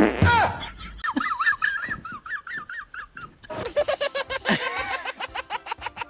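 A loud fart sound effect cuts off at the start, followed by laughter, ending in a fast, rhythmic run of giggles.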